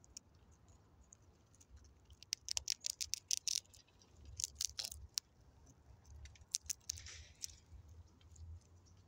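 Fox squirrel gnawing a peanut: quick runs of sharp crunching clicks from its teeth on the nut, in three bursts about two, four and a half, and six and a half seconds in.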